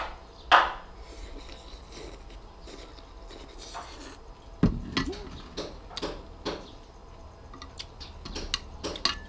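Eating noodle soup: chopsticks and a spoon clicking against ceramic plates and bowls in scattered sharp clicks, with a short mouth sound of eating about five seconds in.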